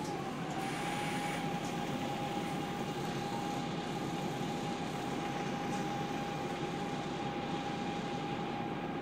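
Volvo B7TL double-decker bus idling, heard from inside the saloon: a steady rough engine rumble with a constant high whine over it, typical of its three-speed Voith automatic gearbox at idle.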